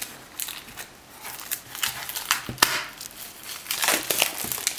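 Clear plastic shrink-wrap crinkling and crackling as it is pulled off a book slipcase by hand, in irregular snaps, loudest about halfway through and again near the end.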